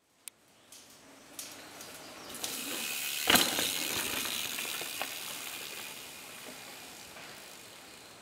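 A mountain bike passing close on a dirt trail: the tyres' rolling hiss swells as it nears, with one sharp clack about three seconds in, then fades away.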